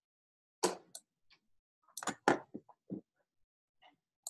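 Keystrokes on a laptop keyboard: about a dozen short, irregular taps and clicks as numbers are typed in, clustered between two and three seconds in, the loudest a little past two seconds.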